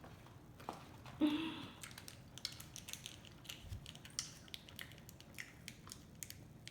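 Close-miked chewing and crunching on a fried chicken sandwich: a string of small crisp clicks and moist mouth sounds, with one louder burst about a second in.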